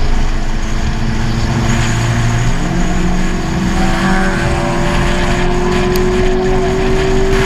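Citroën C4 VTR's engine through its sport exhaust, a steady drone under acceleration, its pitch rising slowly from about three seconds in.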